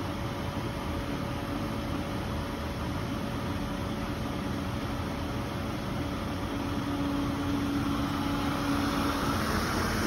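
Winterhalter GS640 hood-type commercial dishwasher running: a steady machine hum with a few steady tones, growing a little louder near the end.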